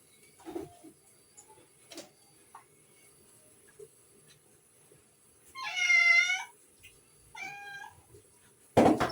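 A cat meows twice: one long meow rising and falling in pitch a little past the middle, then a shorter one about a second and a half later. A loud sound starts just at the end.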